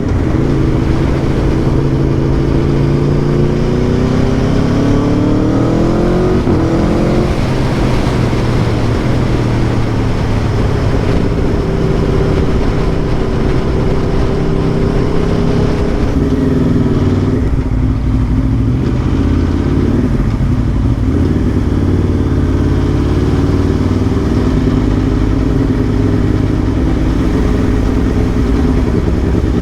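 Aprilia Tuono V4 1100 Factory's V4 engine running under way, its pitch rising for about seven seconds as the bike accelerates, then holding fairly steady with small rises and dips.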